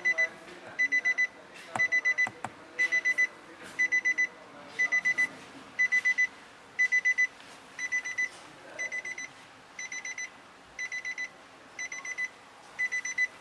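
Vehicle warning chime beeping steadily in rapid clusters of a few high beeps, about one cluster a second. A few sharp clicks sound about two seconds in.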